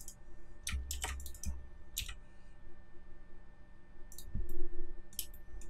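Computer keyboard and mouse clicks: several separate short clicks spread out, as keyboard shortcuts are pressed.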